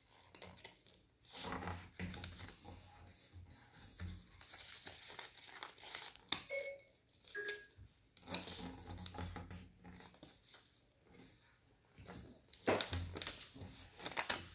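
A sheet of 6-inch origami paper being folded and creased by hand, rustling and crinkling in short, irregular scrapes, with creases pressed down with a thumbnail. The loudest rustle comes near the end.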